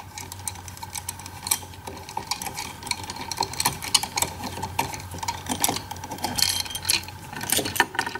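Long bolts of a crankcase splitting tool being unscrewed by hand from an aluminium motorcycle crankcase half: a run of irregular light metallic clicks and scrapes.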